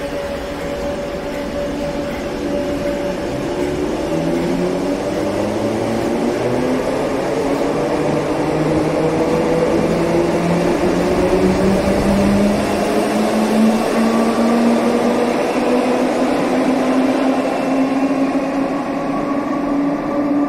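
Merseyrail third-rail electric train pulling away, its traction motors whining in several tones that rise slowly and steadily in pitch as it gathers speed, over the rumble of the wheels.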